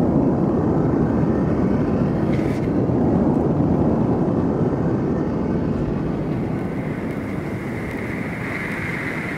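A steady low rumbling noise, with a faint high tone coming in during the last couple of seconds.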